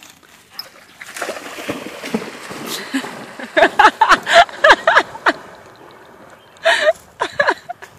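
A Rottweiler bounding through shallow lake water, splashing. From about halfway through, a quick run of loud, short vocal sounds lies over the splashing, with two more near the end.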